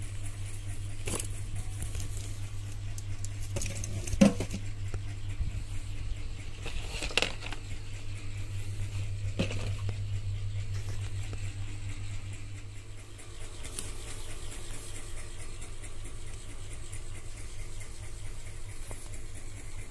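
A few light knocks and clicks of objects being handled, the loudest about four seconds in, over a steady low hum.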